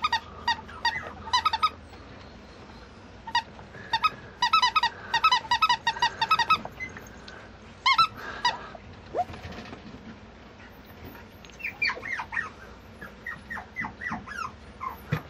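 Rubber squeaky pig toy squeezed by hand, giving quick runs of short, high squeaks, with a few shorter, falling squeaks in the last few seconds.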